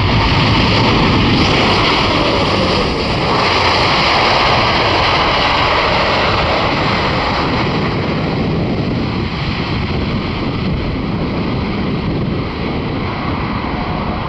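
Jet engine noise from a Boeing 747-8F's GEnx engines: a loud, steady rush that gradually gets quieter through the second half.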